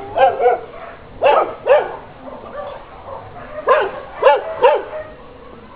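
Dog barking: about seven short barks, in pairs and then a group of three.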